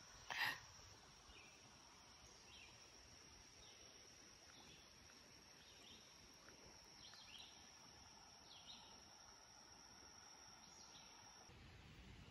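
Faint woodland ambience: a steady high-pitched insect drone with scattered short bird chirps over it. The drone cuts off suddenly near the end.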